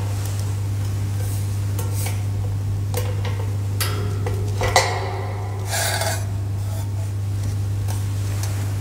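Scattered metal clinks and scrapes as a gold monstrance is handled on the altar, the sharpest clink about halfway through, over a steady low hum.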